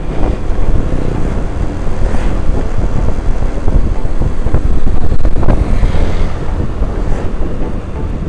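Wind buffeting the microphone on a moving Honda scooter, a loud steady rush, with the scooter's engine and tyre noise underneath.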